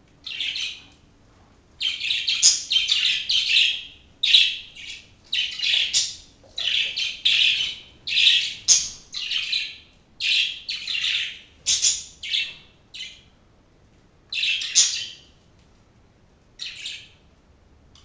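Pet budgerigars chirping and chattering in many short, high, scratchy bursts with brief pauses between, thinning out near the end.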